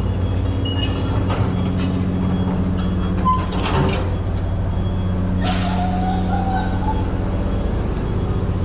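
Steady low drone of a ferry's engines heard on its enclosed car deck. About five and a half seconds in, a sudden loud hiss of air starts and slowly fades.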